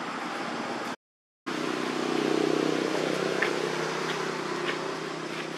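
Engine hum of a motor vehicle that swells and then fades, over steady outdoor background noise with a few faint high chirps. The sound cuts out briefly about a second in.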